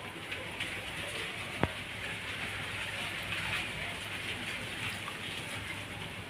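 Steady outdoor background hiss, with a single sharp click about one and a half seconds in.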